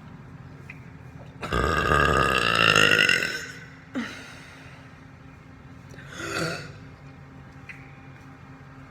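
A person burping on purpose: one long, loud burp of about two seconds, then a sharp click and a shorter, fainter sound a few seconds later.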